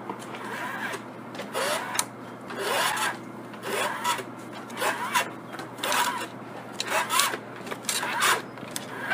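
A long trolley cable being pulled hand over hand through a loop around a wooden post: a series of rasping rubs about once a second, some with a short rising squeak, as the slack is drawn through.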